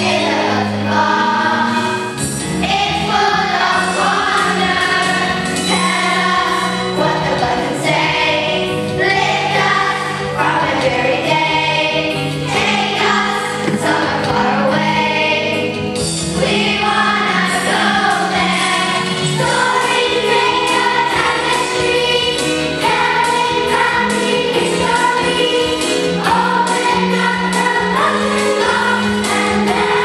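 A group of children singing a song together, with instrumental accompaniment under the voices.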